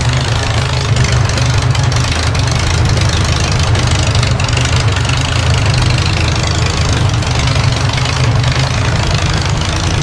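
Volvo demolition derby car's engine idling steadily, a loud low rumble with a fast, even flutter.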